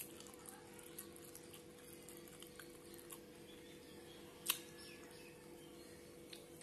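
Faint mouth sounds of someone eating fish by hand: small wet lip smacks and chewing clicks, with a sharper click at the very start and another about four and a half seconds in, over a low steady hum.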